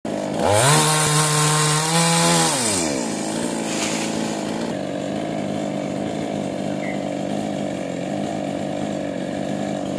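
Chainsaw engine revved up sharply once, held at high speed for about two seconds, then dropping back to a steady idle.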